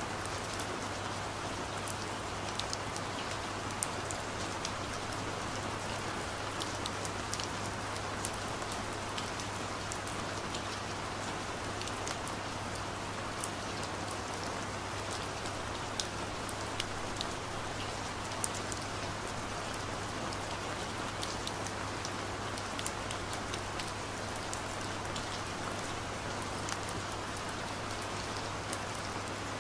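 Steady rain falling, with scattered drops ticking on a surface, over a low steady hum.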